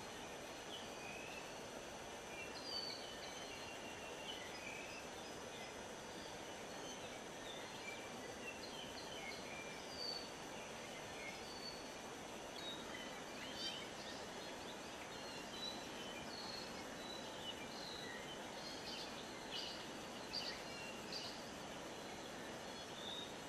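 Many small birds chirping and whistling in short, scattered notes, some rising or falling, over a steady background hiss. The notes come more thickly in the second half.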